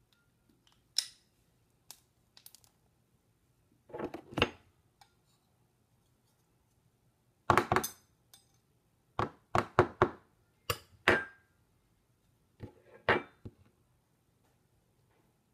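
Metal garlic press and butter knife being handled: a series of short clicks, clinks and knocks, coming in clusters with brief gaps between them.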